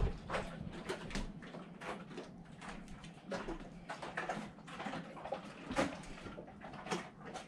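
Scattered light knocks and clicks from someone moving about the cockpit with a handheld camera: footsteps and handling noise, over a faint steady low hum.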